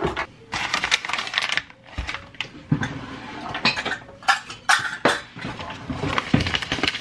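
Irregular clicks, taps and light clatter of measuring cups and utensils being handled on a kitchen counter.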